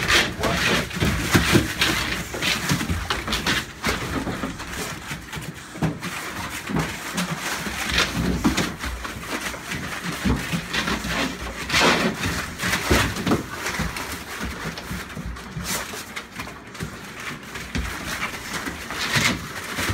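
Several pit bull–type dogs breathing and sniffing close to the microphone, among irregular rustling and bumps from the phone being handled.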